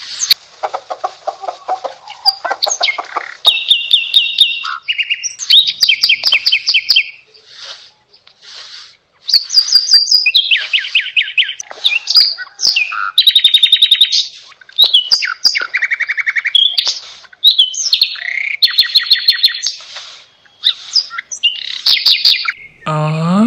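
Several birds chirping and singing in quick, repeated trills and whistled phrases, with hardly a pause.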